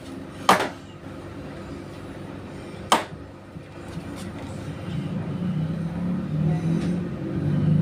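Outdoor city traffic noise with two sharp bangs, one about half a second in and another about three seconds in, then a road vehicle's engine growing louder through the second half.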